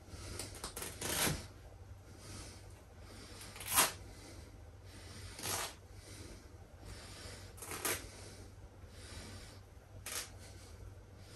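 Plush fabric and seams of a large stuffed toy horse being torn apart by hand: five short ripping sounds a second or two apart, the loudest a few seconds in, between softer rustling of fabric and stuffing.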